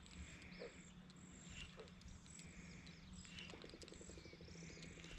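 Faint pond-side animal calls. Short calls repeat about once a second, a rapid pulsing trill starts a little past halfway, and birds chirp high and thin over a steady low hum.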